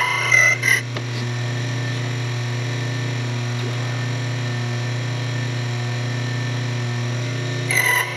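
Framon key-cutting machine's electric motor running with a steady hum. Its cutter bites into a key blank with a brief high-pitched cutting sound in the first second and again near the end; between those the motor runs freely.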